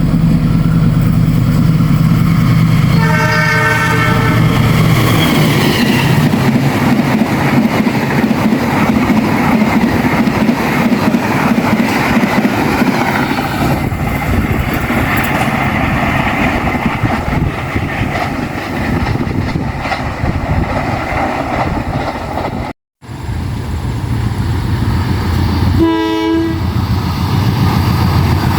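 A train passing: a locomotive engine drones, its horn sounds briefly about three seconds in, then the steady rumble and clatter of the train going by. After an abrupt cut, the locomotive's drone returns with a second short horn blast near the end.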